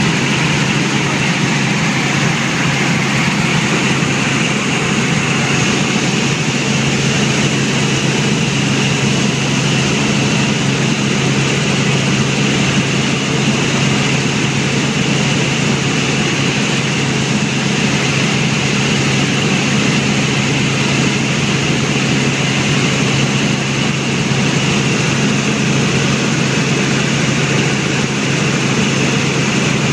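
Helicopter in flight, heard from aboard: a loud, steady drone with a low hum.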